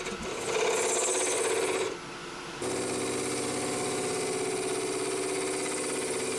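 Wood lathe running with a turning tool cutting a spinning blank of burl wood and epoxy resin: a steady motor hum under the scrape of the cut. The sound drops briefly about two seconds in, then carries on steadily.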